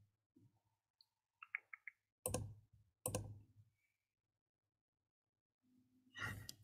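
Faint computer mouse clicks: a few small ticks, then two sharp clicks a little under a second apart, and a longer click with some handling noise near the end.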